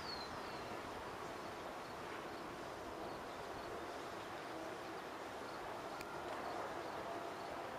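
Steady outdoor background noise with a few faint, high chirps of a bird, each gliding downward.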